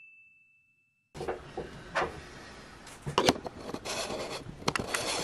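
The last ring of a bell-like "ding" sound effect dies away over the first second. After a brief silence, close handling noise starts about a second in: rubbing and rustling with scattered sharp knocks and clicks.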